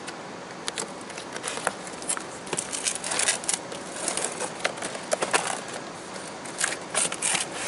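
A cardboard sneaker box being opened and handled by hand, a run of irregular short scuffs, rustles and clicks.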